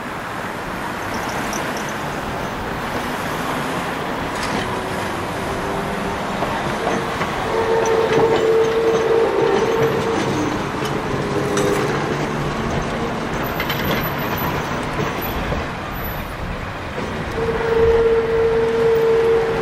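Heritage tram running on its rails with a steady rumble. A held, steady tone sounds twice, each time for about two seconds.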